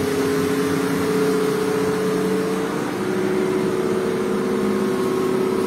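Truck engine running steadily as the truck drives through floodwater, its note stepping down slightly about three seconds in.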